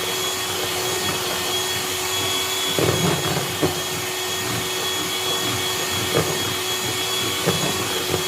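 Electric mixer running steadily at a constant high whine while beating puto cheese batter, with a few short knocks during the mixing.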